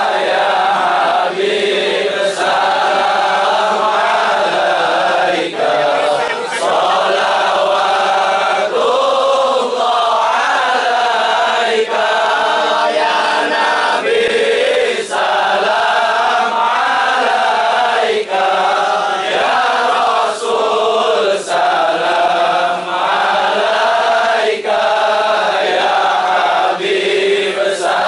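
Many men's voices chanting an Islamic devotional chant together in unison, a continuous slowly rising and falling drone with short breaks for breath.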